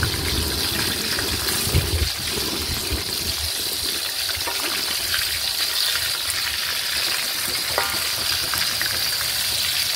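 Whole fish frying in hot oil in a wok, a steady sizzle, with the metal spatula scraping and knocking against the pan as the fish are turned.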